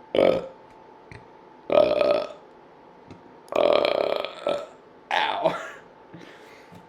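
A person burping deliberately, about four burps a second or so apart, the third the longest with a pulsing, rattling quality. The burps are getting wet-sounding, and a pained 'ow' follows near the end.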